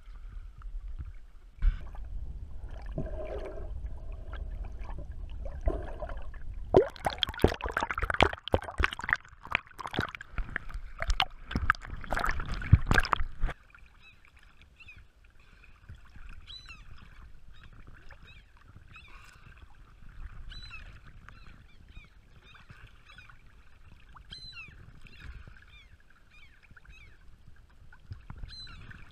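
Lake water splashing and sloshing around a head-mounted camera at the surface, loudest in the seconds before it cuts off suddenly about halfway. Then common gulls call again and again in short cries: the alarm calls of gulls mobbing a swimmer.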